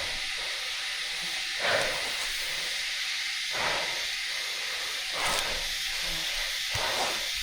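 Steady high-pitched outdoor hiss, with four soft, brief swells of rustling noise spaced a little under two seconds apart.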